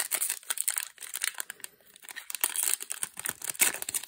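Foil wrapper of a Magic: The Gathering draft booster pack crinkling and tearing as it is ripped open by hand, in irregular crackles.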